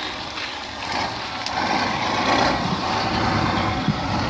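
A heavy truck's engine running amid a loud rushing noise, which grows louder about two seconds in.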